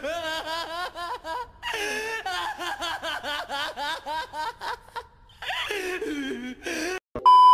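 A male anime character cackling with laughter in long rapid runs, with a brief break about five seconds in. Near the end a loud, steady beep tone cuts in suddenly.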